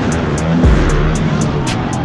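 Background music with a steady beat, over the sound of small pit bike engines running in a race.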